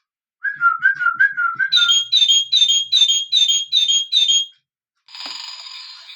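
A singing bird clock plays a recorded bird call through its small built-in speaker. It begins with a short warble, followed by a run of about eight quick, evenly spaced high chirps. After a brief pause, a different, hissy recorded sound starts near the end.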